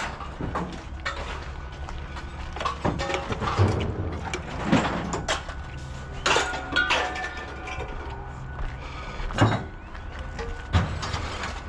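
Pieces of scrap metal clanking and knocking together as they are handled and sorted, several hits ringing briefly, over a steady low hum.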